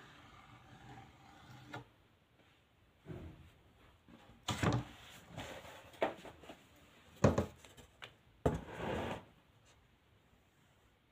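Several separate wooden knocks and short scrapes, a second or so apart, the sharpest a bit past the middle, as a painted plywood board and a plastic comb are handled on a wooden table.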